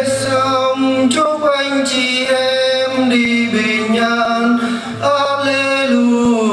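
Choir singing in long held notes that change pitch every second or so.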